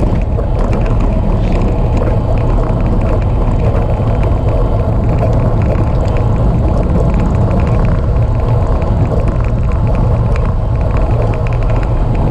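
Steady wind rumble on the microphone of a camera carried on a moving road bicycle, with no break or change throughout.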